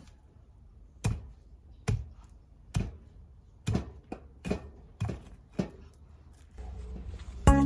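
A series of sharp knocks, about one a second, seven in all, typical of tapping or hammering work. Music begins near the end.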